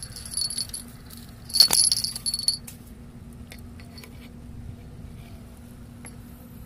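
Small bell on a fishing rod jingling: the bite-alarm bell shaken by a fish on the line. The ringing comes in bursts, loudest with a sharp knock about a second and a half in, and stops about two and a half seconds in.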